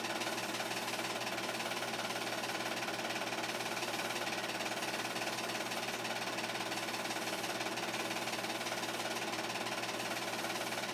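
8mm film projector running steadily, its motor and film transport making an even mechanical sound with several fixed tones and no change in level.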